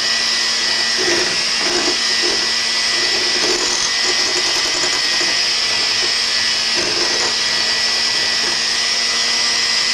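Electric mixer running steadily, its beaters working flour into sponge-cake batter, with a constant motor whine.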